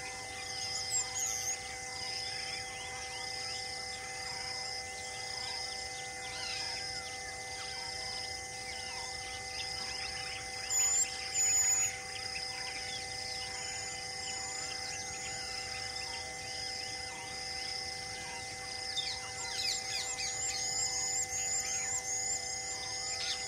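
Dusk countryside ambience: insects pulse steadily about once a second over a constant hum, while birds call. A sharp, louder bird call comes about halfway through, and a quick run of repeated chirps near the end.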